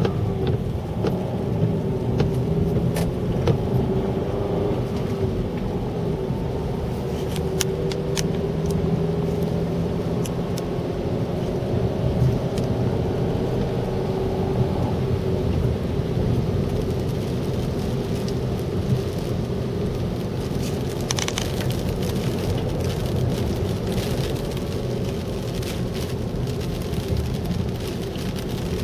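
Car driving on a wet road, heard from inside the cabin: a steady rumble of engine and tyres with a wavering engine hum. Scattered sharp ticks of rain striking the windshield.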